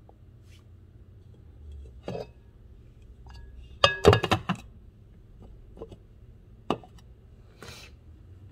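Glass slow-cooker lid set down onto the crock: a quick cluster of clinks and rattles with a short glassy ring, about four seconds in. A few lighter single knocks come before and after.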